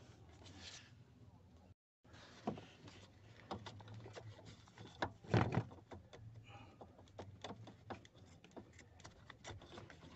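Light scattered clicks and knocks of a screwdriver and gloved hands working the screws and plastic housing of a pickup's ignition switch under the steering column, with two louder knocks about two and a half and five and a half seconds in.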